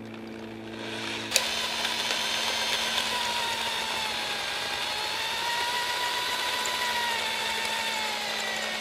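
Right-angle electric drill starting about a second in and running steadily under load, its whine wavering slightly in pitch, as it drills out a broken exhaust manifold stud in an LS cylinder head through a guide bushing. It stops abruptly at the end.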